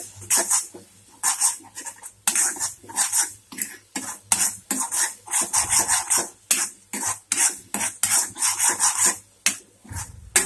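Metal spatula scraping and stirring a thick onion-tomato masala in a kadhai, quick repeated scrapes against the pan at about two to three a second, as the ground spices are fried into the paste.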